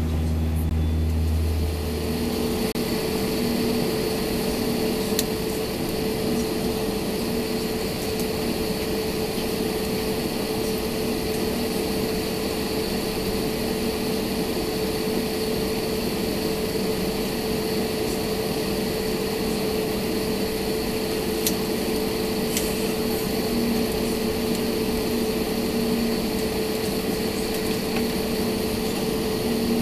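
Steady cabin drone inside an Airbus A320neo taxiing: the engines at low taxi power and the cabin air conditioning, with a steady hum and a faint high whine. A deeper low hum drops away about two seconds in.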